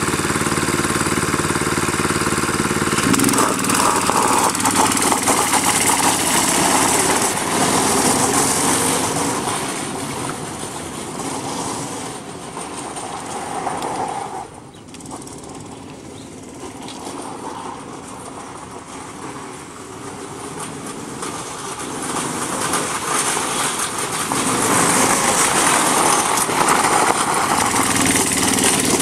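Yerf-Dog go-kart's 165cc engine running at low revs, then revving up about three seconds in as the kart drives and drifts on gravel. The engine fades down through the middle and swells back loud near the end.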